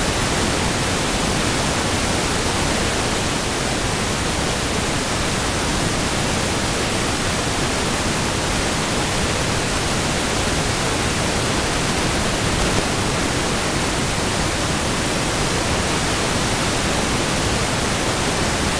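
Loud, steady static hiss, even from low to high pitch, that starts and stops abruptly. It is noise on the audio track that masks any sound from the pan.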